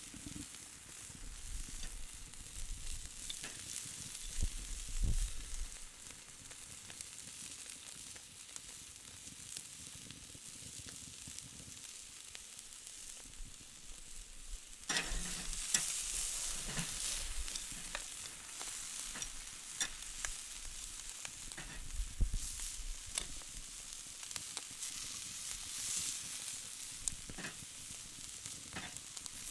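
Food sizzling on a barbecue grill: a steady hiss with scattered crackles and pops. About halfway through the sizzle suddenly grows louder and stays so.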